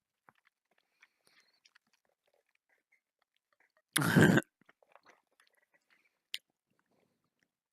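Faint, scattered sticky mouth clicks of someone chewing a gummy fruit snack, with one loud half-second burst of noise about four seconds in and a single sharp click near the end.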